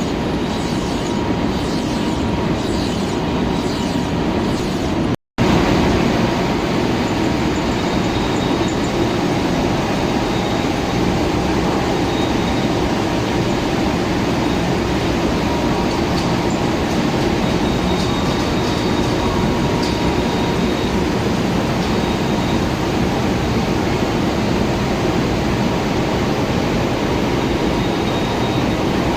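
Metalworking machine tool running steadily while cutting a steel shaft, a continuous mechanical noise with a faint steady whine. It drops out for an instant about five seconds in.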